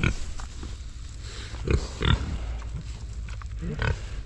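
Pigs grunting close by: a few short grunts, the loudest about two seconds in and another near the end.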